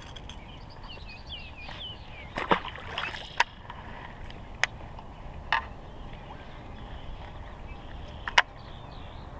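Baitcasting rod and reel being handled: a handful of sharp clicks and knocks over a low, steady outdoor background, the loudest near the end. A few short, wavering chirps sound about a second in.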